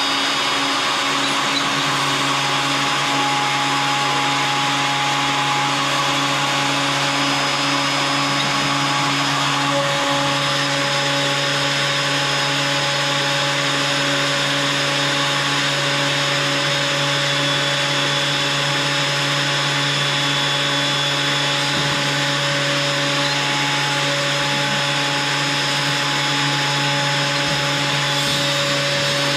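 A benchtop thickness planer running steadily and loudly: a constant motor whine and hum over a rushing noise.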